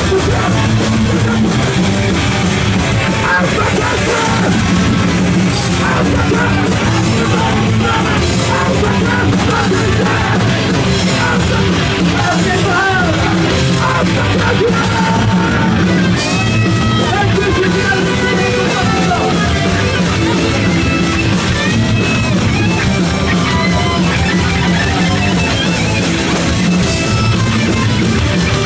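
Hardcore punk band playing live and loud: distorted electric guitars and drums, with shouted vocals.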